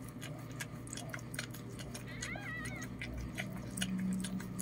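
Newborn puppy giving one short, wavering high-pitched squeak a little past halfway, over a run of small clicking mouth sounds from the puppies nursing at the mother.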